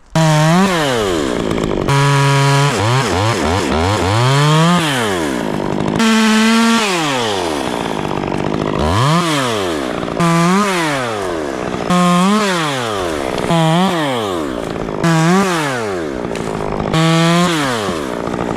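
Two-stroke Stihl chainsaw cutting in a tree, its engine revving up and dropping back again and again, about every one and a half seconds, with a couple of short stretches held at full speed.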